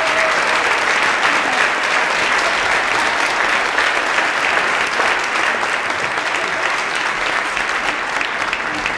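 Audience applauding, a dense steady clapping that eases slightly toward the end.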